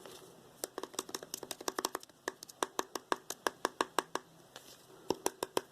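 Fingers tapping on a hard object close to the microphone in quick runs of sharp taps. A fast flurry comes first, then a slower, even run of about four or five taps a second, then another fast flurry near the end.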